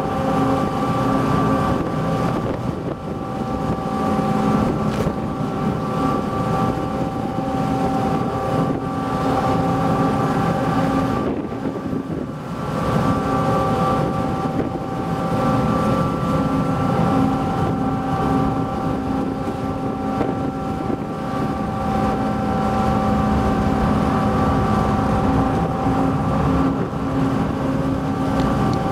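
A steady engine drone with several fixed tones, dipping briefly about twelve seconds in, with wind on the microphone.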